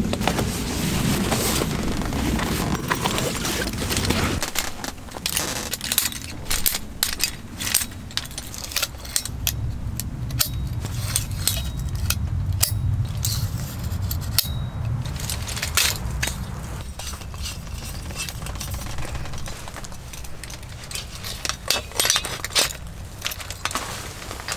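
Scattered sharp clicks and clinks of small hard objects, such as camping gear and utensils, being handled and set down. A low hum runs through the middle stretch.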